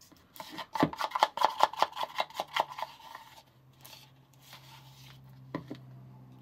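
Plastic spatula scraping quickly against a plastic bowl, about a dozen short strokes in two seconds, then soft handling and one light knock.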